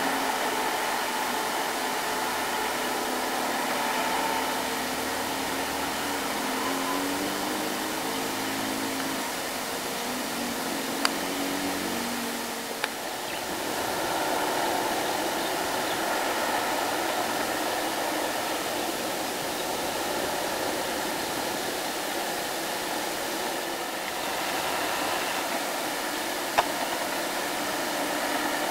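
Loaded light diesel trucks running past on a mountain road: an engine note that wavers in pitch through the first dozen seconds, then fades into a steady hissing road noise. Three short sharp clicks, about 11, 13 and 27 seconds in.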